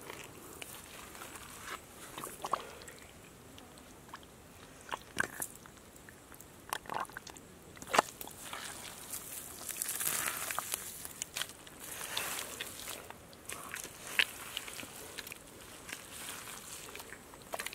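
Bare hands digging into wet mud and soil, with irregular squelches, crunches and small cracks as clods are broken and scooped; one sharper crack about halfway through.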